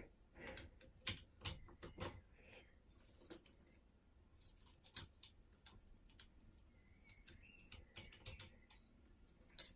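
Faint, irregular metallic clicks and taps of a five-lever mortice lock's levers and small parts being handled as the lock is reassembled.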